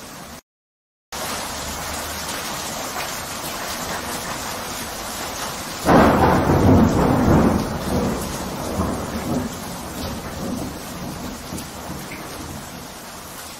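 Steady rain with a loud roll of thunder about six seconds in that dies away over a few seconds. The sound cuts out briefly just after the start.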